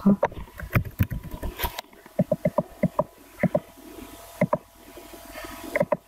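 Computer keyboard typing and mouse clicks: scattered sharp clicks, with a quick run of keystrokes a little after two seconds.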